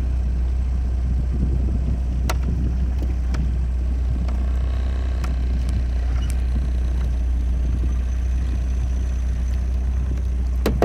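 Motorboat engine running at a steady speed, a constant low hum heard from on board, with a few faint clicks.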